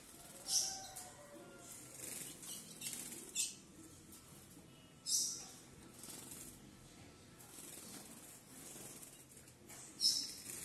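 Small caged songbirds making about four brief, sharp high-pitched sounds a few seconds apart, over a faint background.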